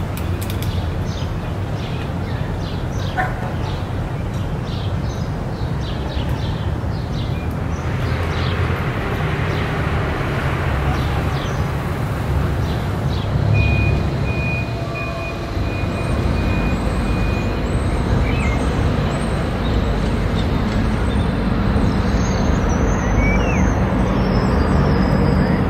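Town street ambience: a steady hum of road traffic, with a vehicle swelling past around the middle. Brief high sounds come in the first several seconds, and a thin steady high tone holds for a few seconds after the vehicle passes.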